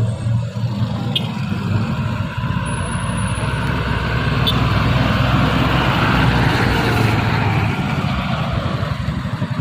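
Hino 500 truck's diesel engine labouring under load on an uphill climb, a steady low drone that grows louder toward the middle and then eases off.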